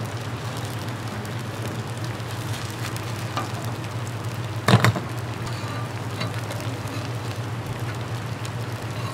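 Xiaolongbao pan-frying in oil to set a crispy wrapper: a steady sizzle over a low hum, with one sharp knock a little before halfway through.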